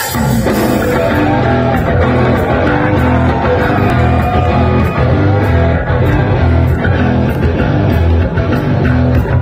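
Live rock band playing loud with electric guitar, bass and drums, kicking in suddenly at the very start and keeping a steady driving beat with regular cymbal hits.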